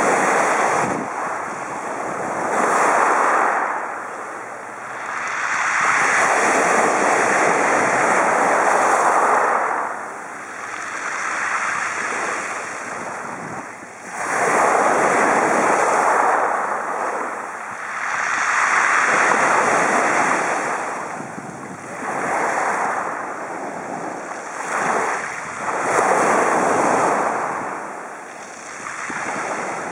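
Small waves breaking and washing up a beach of rounded pebbles, the surf swelling and fading every few seconds.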